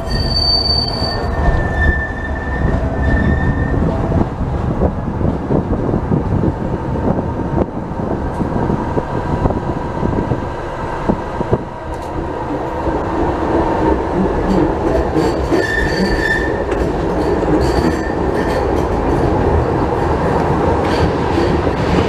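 Tram running along street track: a steady rumble of steel wheels on rail, with wheel squeal twice, in the first few seconds and again about two-thirds of the way through.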